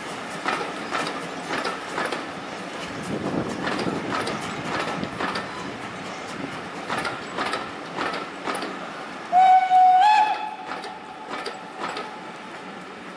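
Passing steam-hauled train's coaches rolling by, their wheels clicking over rail joints in a regular rhythm over a steady rumble. About nine seconds in, the steam whistle sounds once, loud and about a second long, stepping up slightly in pitch near its end.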